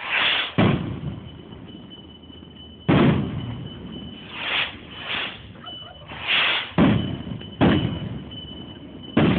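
Fireworks going off: five loud bangs at irregular intervals, each trailing off, with short hissing swells between them.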